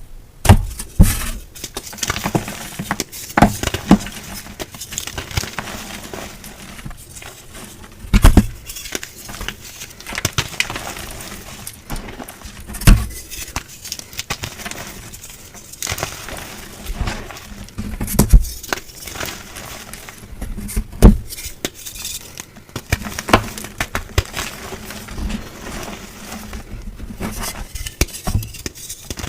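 Blocks of gym chalk being crushed and crumbled: irregular sharp crunches and snaps every second or so, the strongest a few seconds apart, over continuous soft powdery crackling.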